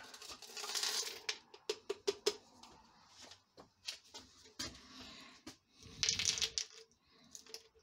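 Small rusty nuts and bolts pouring from a little pot into a plastic rock-tumbler barrel with sand, a brief metal rattle, followed by scattered small clicks and clinks as the barrel is handled, with another short rattle about six seconds in.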